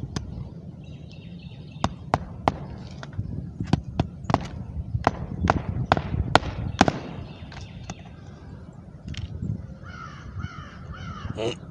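An irregular run of sharp snaps or knocks, about a dozen over some five seconds, then a bird calling several times near the end.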